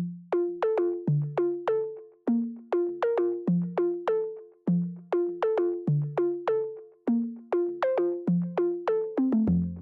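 Intro music: bright plucked synthesizer notes in a bouncy repeating melody, about two to three notes a second, each dying away quickly, with a bass line and fuller backing joining near the end.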